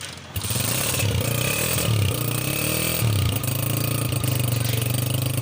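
Honda CG125's single-cylinder four-stroke engine starting up about a third of a second in. Its pitch rises and falls a few times, then it settles into a steady idle about three and a half seconds in.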